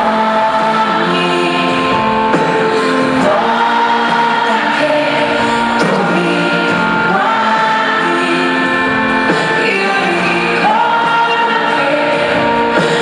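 Live pop song in an arena: a woman sings the lead vocal in long held lines, with band accompaniment and backing vocals.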